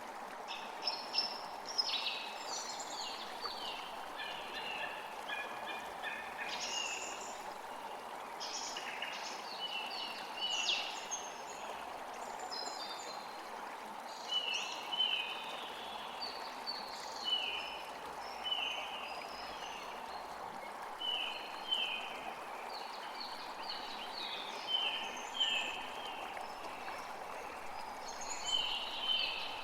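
Several birds chirping and calling over a steady background hiss. From about halfway, one bird repeats a short falling note roughly once a second.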